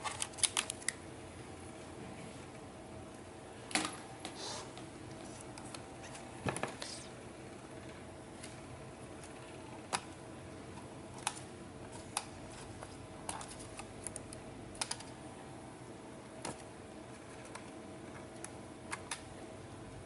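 Scattered light plastic clicks and taps from handling a laptop keyboard and its palm-rest casing: a quick cluster at the start, then single clicks every second or two. A faint steady hum runs underneath.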